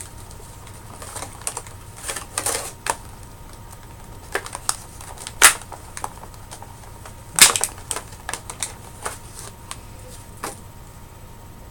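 Hands handling a plastic action figure and its packaging: irregular clicks and crinkles, with two louder snaps about five and a half and seven and a half seconds in.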